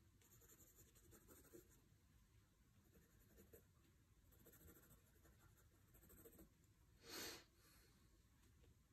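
Pencil drawing on sketchbook paper: faint, irregular short strokes, with one louder stroke lasting about half a second roughly seven seconds in.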